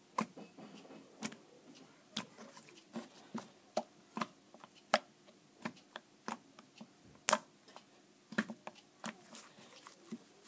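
Fluffy slime being pressed and squeezed by hand, making lots of irregular sharp clicks, a few a second, with one louder click about seven seconds in.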